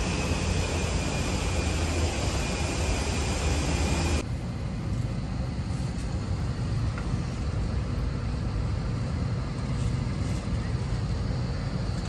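Steady rushing air noise with a strong low hum in a passenger boarding bridge, giving way abruptly about four seconds in to the quieter, lower steady hum of a parked airliner's cabin ventilation, with a couple of faint ticks.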